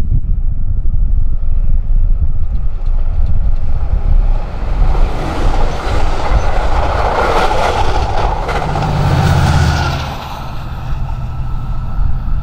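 Amtrak Pacific Surfliner push-pull train passing, cab car leading, with wheel-on-rail rumble and clatter from the bi-level cars that grows to a peak several seconds in. About nine seconds in, the diesel locomotive pushing at the rear goes by with a low engine drone, then the sound eases off as the train moves away. Wind buffets the microphone.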